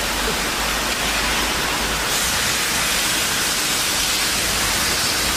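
A steady, loud hiss with most of its energy high up, even and unbroken, with no tone or rhythm in it: the running noise of a CNC cutting workshop.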